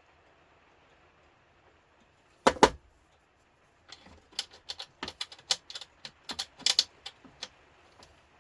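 Hand tools clicking and tapping on the grill's casing while working at deep-set security screws. There are two loud sharp clicks about two and a half seconds in, then from about four seconds in a quick, irregular run of lighter clicks and taps.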